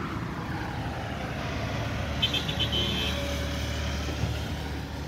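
Road traffic: a motor vehicle passes with its engine running, its sound falling in pitch as it goes by. A short run of high beeps comes about two seconds in.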